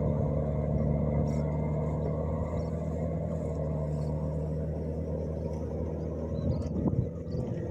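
MAXXI 85 combine harvester running with a steady engine drone, easing slightly a few seconds in, with some irregular rattling noises near the end.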